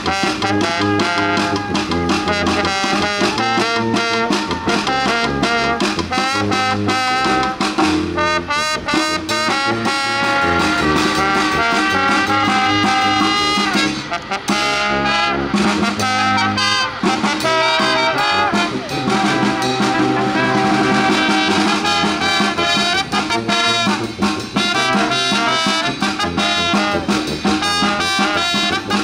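A brass and drum band playing a lively, upbeat tune, with brass instruments carrying the melody over a steady drum beat and bass line.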